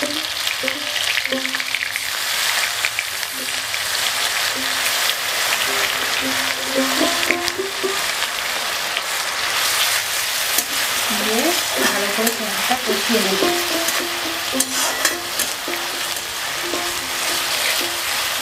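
Onion paste sizzling steadily as it fries in hot mustard oil in an aluminium kadai, with the scrape and tap of a metal spatula stirring it round the pan. Soft background music plays underneath.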